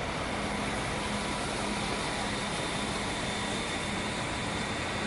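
Steady drone of a train heard from aboard as it moves through a station: engine and running noise with an even low hum.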